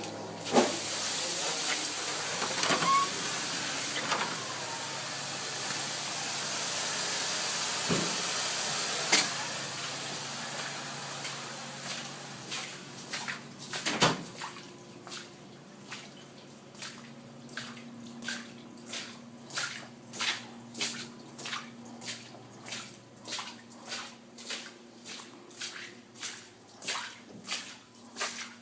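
Water extraction equipment spraying and sucking water. A steady hiss fills the first half. From about halfway it turns into short, regular surges of water, roughly one a second.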